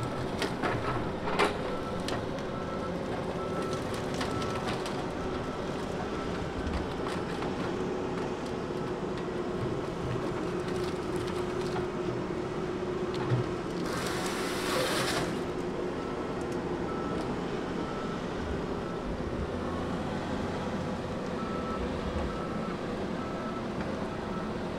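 Diesel engines of a Tigercat 234B log loader and a John Deere 748L grapple skidder running steadily, with a backup alarm beeping on and off. A few sharp snaps come near the start, and a brief hiss about fourteen seconds in.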